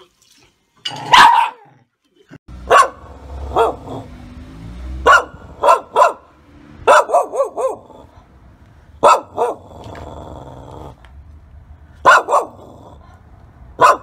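Shiba Inu barking repeatedly: sharp single and paired barks a second or two apart, with a quick run of four or five barks about halfway through.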